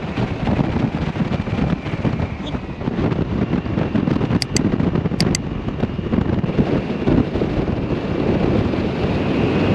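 Wind buffeting the microphone of a moving 125 cc scooter, a loud, gusty rumble mixed with road noise. Two pairs of short, high clicks come about halfway through.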